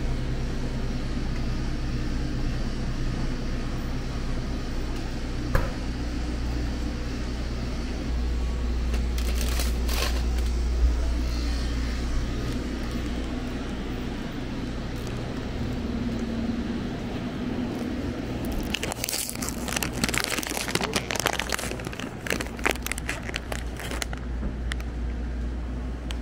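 Convenience-store room tone: a steady low hum with scattered crinkling and crackling. There is a brief cluster of crackles about ten seconds in and a denser run of them from about nineteen to twenty-four seconds.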